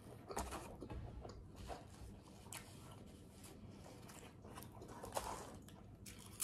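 A person chewing a mouthful of turkey sub close to the microphone: faint, irregular wet mouth clicks.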